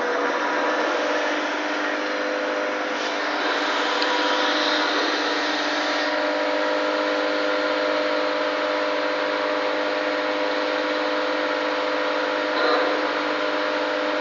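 MEP Shark 652 SXI EVO band saw running steadily, its Bahco 3853 blade turning free as the saw head lowers toward a steel H-beam before it bites into the metal. The sound is an even motor hum and blade whine made of several fixed tones.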